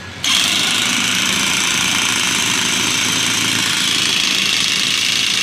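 Corded electric impact wrench running on a car alternator's pulley nut, starting suddenly about a quarter second in and then going steadily without a break.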